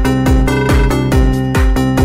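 Electronic dance music with a steady kick-drum beat, about two beats a second, and held synth tones.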